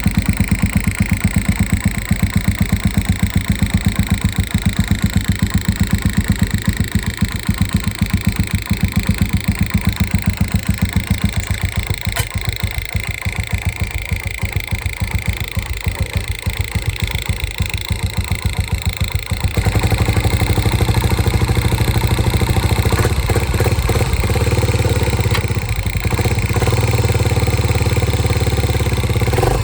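1987 Honda TRX350 FourTrax's single-cylinder four-stroke engine running just after a start, with a quick steady pulse, checked after a fuel filter replacement. About two-thirds of the way through it gets louder and deeper and stays that way.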